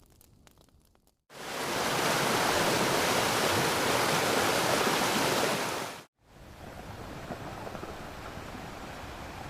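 Sound-effect clips: a loud, steady rushing noise starts about a second in and cuts off abruptly a few seconds later, followed at once by a quieter steady rushing noise.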